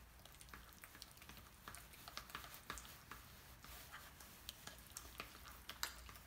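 Small plastic spoon stirring and mashing soft avocado in a ceramic bowl: faint, irregular soft clicks and squishes, a few a second, as the spoon knocks and scrapes the bowl.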